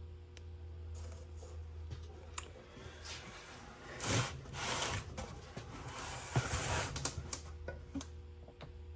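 Small parts and packaging being handled by hand: a cluster of rustling and light clicks, loudest around the middle, over a steady low hum.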